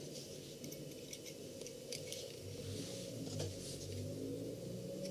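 Faint scattered clicks and light metallic rattles as small steel hook parts, a latch lever and its coil spring, are handled and fitted with gloved hands, over a low steady hum.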